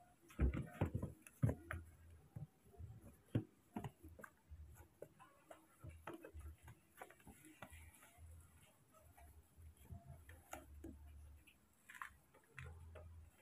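Faint handling noises: soft clicks and taps, thickest in the first second and a half, then scattered through the rest.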